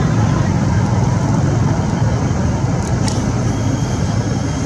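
Steady low rumble of background noise, with a faint click about three seconds in.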